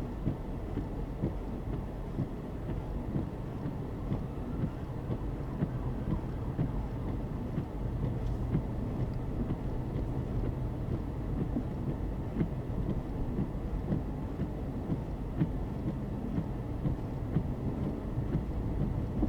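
A vehicle driving on a snowy road: a steady low rumble of road and tyre noise with many small irregular knocks and clatters.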